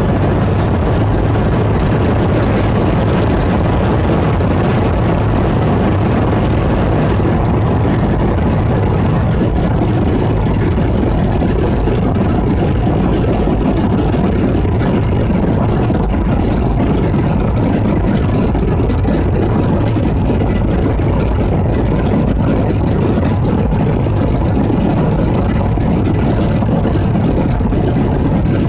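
Airliner's jet engines running at high power on the takeoff roll, heard from inside the cabin as a steady, loud noise with a deep rumble underneath and a faint steady whine.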